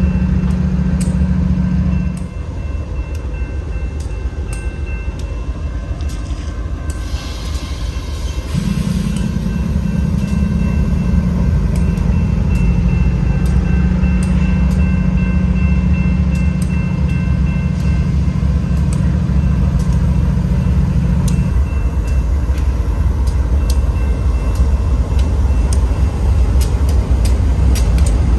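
Diesel locomotives moving slowly through a grade crossing with a string of hopper cars. The engines rumble, ease off about two seconds in, pick back up near the middle and ease again later on. A crossing bell rings in steady even strokes, and there is a short hiss about seven seconds in.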